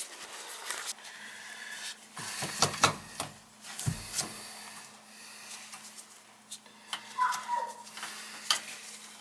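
Irregular clicks, knocks and rubbing from hand tools and metal burner parts being handled during repair of an oil burner's pump coupling, over a faint steady hum.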